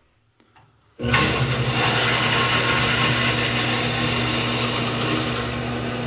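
Shallow-well jet pump, used as a water pressure booster, starting up abruptly about a second in after a faint click or two from the pressure switch, then running steadily with a low electric-motor hum. The pump is building system pressure toward the switch's 60 psi cut-off.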